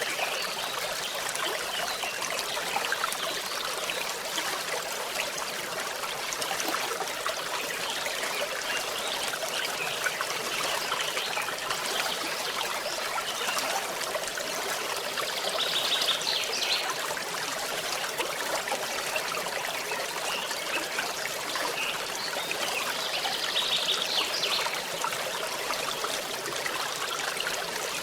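Forest stream trickling and splashing steadily. A brief high trill, likely a bird, sounds about halfway through and again near the end.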